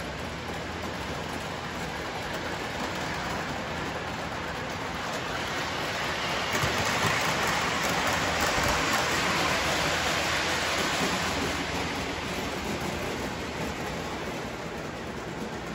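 O-gauge model train with MTH passenger cars running past on three-rail track: a steady hissing rumble that swells as the cars pass close, loudest about seven to eleven seconds in, then fades as the train moves away.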